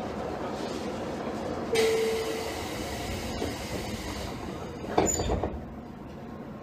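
Inside a JR Kyushu 813 series electric train car, with a steady rumble. About two seconds in a sudden rush of air hiss comes with a short hum, and about five seconds in there is a sharp thump, after which the car is quieter.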